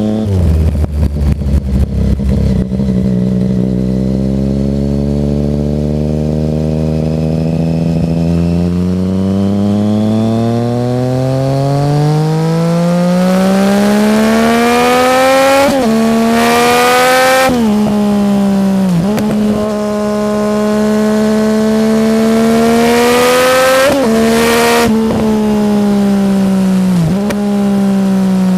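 Yamaha MT-09 (FZ-09) three-cylinder engine through an Arrow aftermarket exhaust, revving: the pitch climbs slowly and steadily for about twelve seconds, then falls and rises again several times. A burst of crackling comes right at the start, and two loud rasping bursts come at the top of the revs, about halfway through and again near the end.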